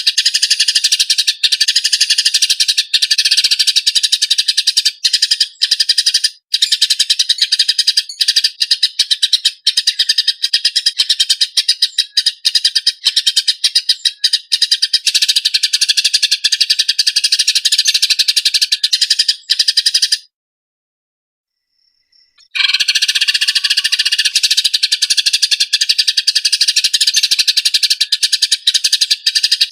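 Eurasian tree sparrows giving their fighting chatter: harsh, rapid, tightly packed chirps. The chirping stops dead for about two seconds roughly two-thirds of the way through, then starts again.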